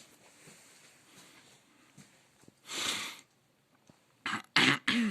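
A person coughing, three short coughs near the end, the last dropping in pitch, after a short breathy exhale about three seconds in.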